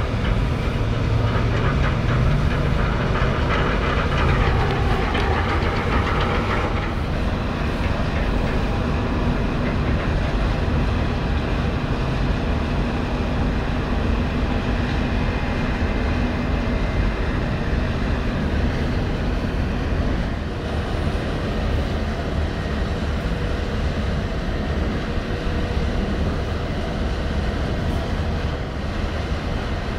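A passenger-car ferry's diesel engines rumbling steadily as the ship manoeuvres in close, with a few faint steady tones over the rumble. A higher rushing sound is louder over the first seven seconds and stops abruptly.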